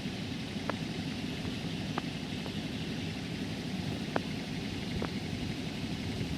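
Steady low background rumble with a few faint, sharp metallic clicks scattered through it, from small metal parts being handled while a bearing is fitted to the machine's shaft.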